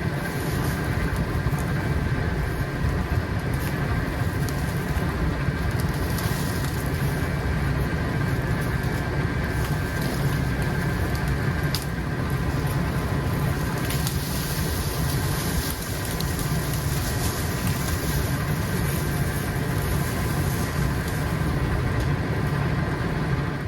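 Pickup truck moving slowly along a rough woodland two-track: engine running and tyres rolling over the ground, a steady noise with a few sharp clicks and knocks, cutting off suddenly at the end.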